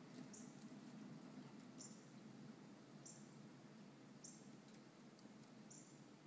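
Near silence: faint room tone, with a short, faint high chirp repeating about every second and a half.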